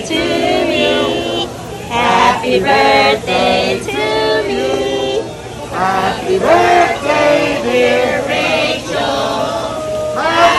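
A group of men and women singing together, loud, with held notes and short pauses between phrases.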